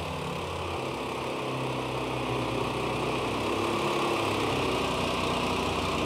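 The small engine of a homemade tracked ATV running steadily as the vehicle drives across snow.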